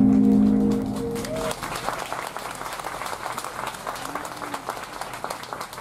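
Music with long held chords stops about a second and a half in. An audience then applauds, a dense patter of many hands clapping.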